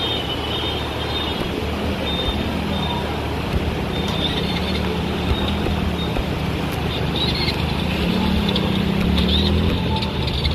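Steady rush of floodwater and rain, with a motorcycle engine running as it rides through the water, its pitch wavering.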